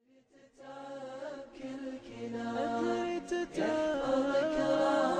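Background music fading in: an Arabic devotional vocal chant (nasheed), a voice singing a wavering, ornamented melody with no instruments clearly heard. It begins from silence about half a second in and grows louder.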